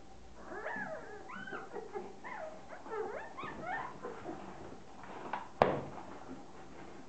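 Fox terrier puppies whining and yipping in a quick run of short, high cries that rise and fall, over about the first four seconds. A single sharp knock, the loudest sound, comes a little after five and a half seconds.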